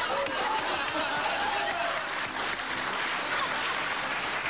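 Studio audience applauding and cheering, with a few voices calling out in the first couple of seconds.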